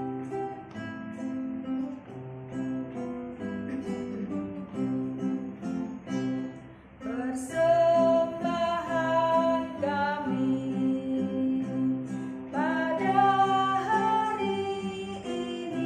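Acoustic guitar playing an introduction. About seven seconds in, a woman starts singing an Indonesian offering hymn over it.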